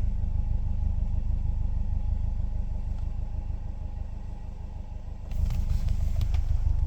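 Subaru Forester flat-four boxer engine idling with a rapid tapping knock in its running. The knock sensor has flagged it with a knock code, pointing to a knock inside the motor. The engine sound dips in level and comes back up about five seconds in.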